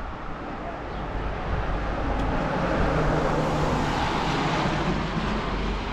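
A car passing along the street, its tyre and engine noise swelling to a peak midway and then fading.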